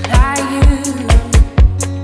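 Background music: a funk/soul-style song with a steady kick-drum beat and a gliding melody line.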